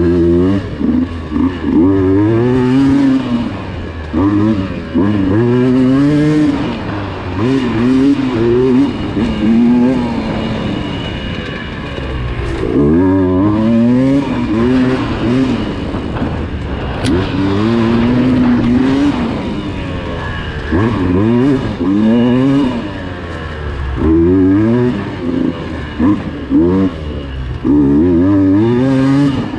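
Dirt bike engine revving up and down over and over, climbing in pitch through the gears and backing off between bursts of throttle.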